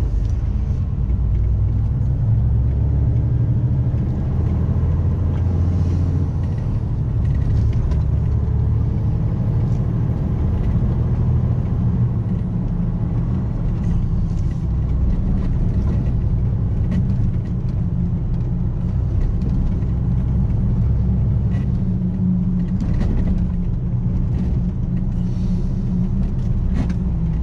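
A motor vehicle being driven along a road: a steady low engine and road rumble, with a few faint clicks or rattles.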